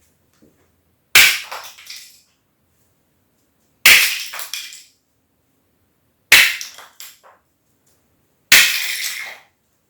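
Rubber mallet knocking the tops off plastic self-levelling tile spacer clips, snapping them at the base: four sharp cracks, each followed by the broken pieces clattering on the tile floor.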